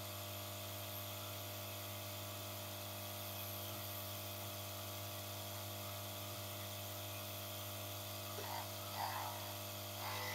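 Yihua 968 desoldering station's internal vacuum pump running with a steady low hum while loose parts around it resonate. A few faint touches on the wiring come near the end.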